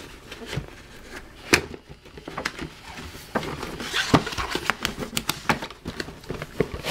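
Cardboard toy box being turned over and handled to open it: scattered taps, clicks and scrapes of fingers on cardboard, with a sharper knock about a second and a half in and another about four seconds in, and busier rustling in the second half.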